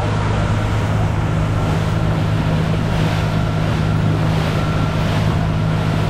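Small fishing boat's engine running steadily with a low drone while under way, over the rush of water and wind as the hull cuts through choppy water.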